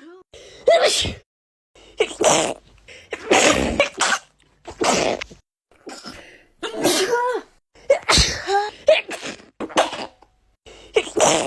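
A person sneezing over and over in an allergic sneezing fit: about eight sharp sneezes, roughly one every second or so.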